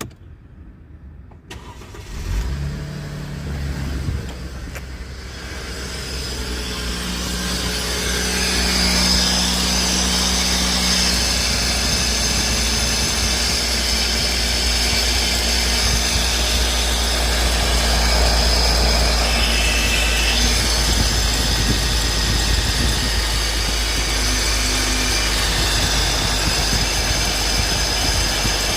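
An engine starting about two seconds in, then running with a steady low drone that grows louder over the next several seconds and holds steady.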